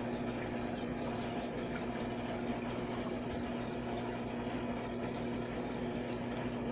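A small water pump running steadily: a constant low hum with an even watery rush over it.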